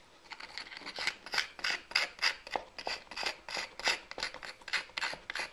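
Rapid back-and-forth scraping of a hand tool over the sand mould and the top of a freshly cast bronze wheel, clearing away sand, at about four to five strokes a second. The strokes start faint and get louder about a second in.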